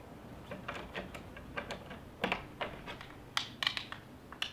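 Small plastic clicks and taps as the two halves of a 3D-printed case are fitted and pressed together around a Raspberry Pi board: a dozen or so irregular clicks, the loudest in the second half.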